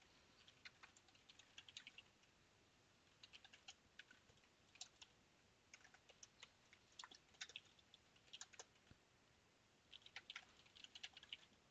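Faint typing on a computer keyboard: short runs of quick keystrokes separated by brief pauses.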